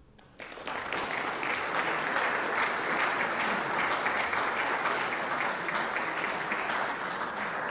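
Audience applauding, many hands clapping together, starting about half a second in and holding steady.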